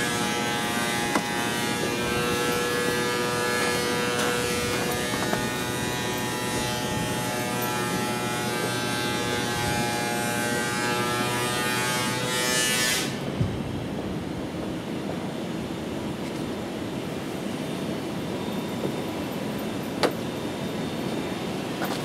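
Woodworking planing machine in a workshop running with a steady multi-toned whine; about thirteen seconds in, a short hiss and the whine stops, leaving a duller steady noise with a single sharp click later on, and the whine starts again at the very end.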